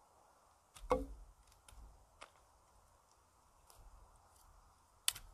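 Dry sticks knocking against wooden posts as they are handled: a sharp wooden knock with a short ring about a second in, a few lighter ticks, and another sharp knock near the end.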